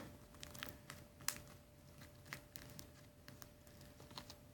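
Faint sticky clicks and small pops of slime being kneaded and stretched between the fingers, at irregular intervals.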